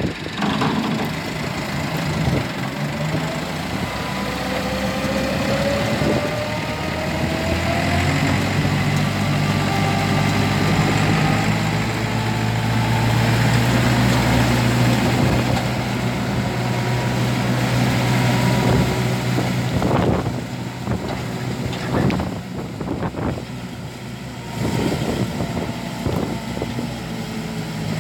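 Tractor engine running and driving a PTO-powered wheat-straw chopper. A whine climbs in pitch over the first several seconds as the chopper spins up and the overall sound grows louder, with several knocks in the later part.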